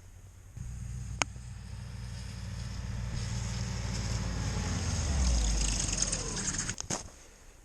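A motor running, growing louder for about five seconds with its pitch falling near the end, then cutting off sharply.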